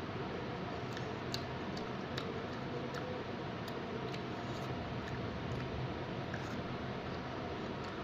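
Someone eating mango: scattered sharp wet mouth clicks and smacks, irregular at about one or two a second, over a steady background hiss.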